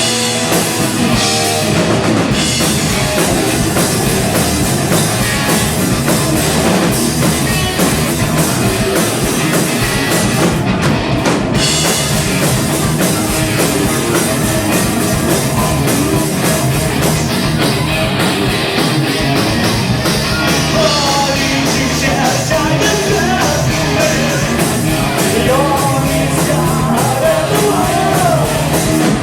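Live rock band playing loudly: distorted electric guitars, bass and a driving drum kit with dense cymbal hits, in a punk/heavy rock style.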